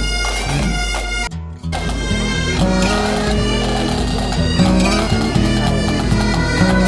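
Background music: an instrumental stretch of a pop song, dropping out briefly about a second and a half in.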